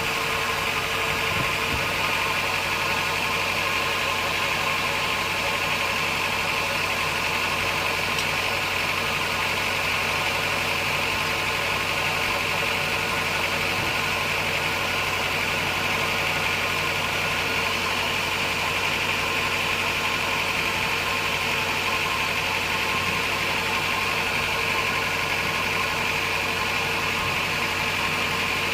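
Sawmill machinery running steadily, a constant mechanical drone with no pauses or changes.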